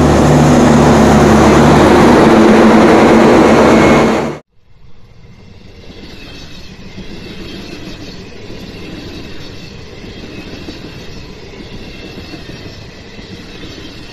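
WDM3A diesel locomotive's ALCO 16-cylinder engine running loudly as it passes close by, a steady low drone with rail noise, cut off abruptly about four seconds in. A much fainter, steady rumbling noise follows.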